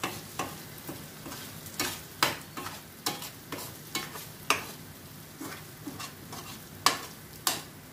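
A spoon scraping and knocking in a pan as boiled eggs are turned through thick onion-tomato masala, with a light sizzle of the frying masala underneath. The knocks come irregularly, a couple each second, the two loudest near the end.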